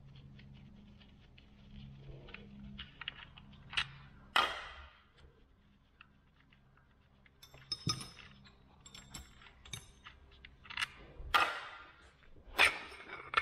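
Metal parts of a Muncie four-speed transmission clicking and clinking as they are handled during teardown, with a few louder knocks about 4, 8, 11 and 12.5 seconds in.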